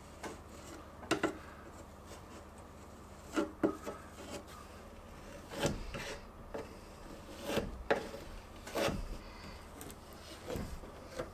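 Putty knife scraping along the wooden glass rebate of an old window sash as glazing putty is spread into it, in a series of short, irregular strokes.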